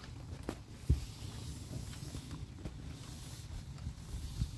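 Thunderstorm ambience: a steady hiss of rain over a low rumble, with a single low thump about a second in and a smaller one near the end.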